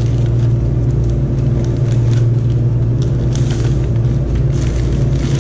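A loud, steady low hum runs throughout, and over it comes the faint crinkling and rustling of a plastic mailer bag being handled and pulled open.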